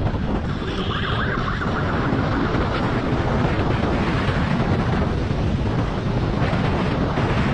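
Steady wind rush buffeting the microphone of a camera riding on a moving police motorcycle, with the motorcycle's engine running underneath.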